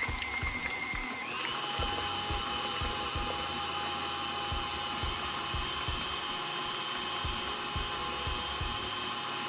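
KitchenAid stand mixer running with its wire whisk, beating a thick cream cheese batter. The motor whines steadily and steps up in pitch about a second in as the speed is raised.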